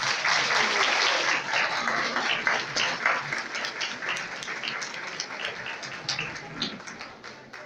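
Audience applauding, a dense clatter of many hands clapping that is strongest in the first few seconds and then gradually dies away.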